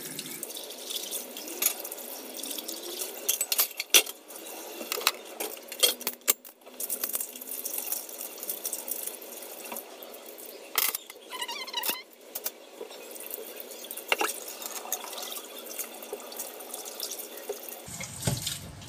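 Tap water running into a kitchen sink while dishes are rinsed by hand, with scattered clinks and knocks of plates and bowls against each other and the sink.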